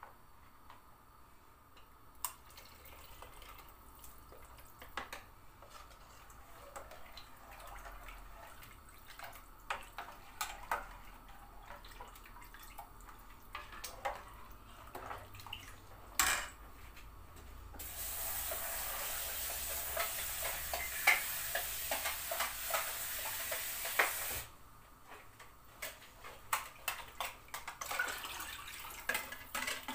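A metal whisk and ladle clink and tap against a plastic container and a steel soup pot as a yogurt mixture is whisked, poured and stirred into hot soup. About two-thirds of the way through, water runs steadily for about six seconds and then stops abruptly.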